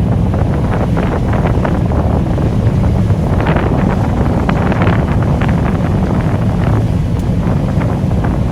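Combine harvester running through a soybean field: a steady low engine drone with constant rattling on top.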